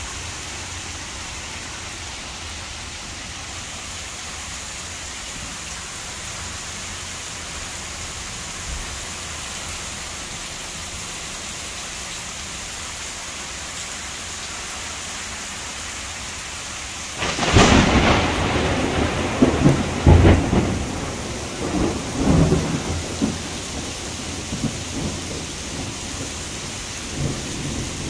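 Heavy rain falling steadily in a thunderstorm; about two-thirds of the way in, a sudden loud thunderclap breaks out and rumbles on unevenly for about five seconds before the rain alone is left again.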